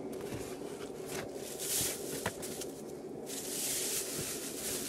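Thin plastic sheet rustling and crinkling as it is pulled back off a cylinder head, in two bouts with a sharp click between them.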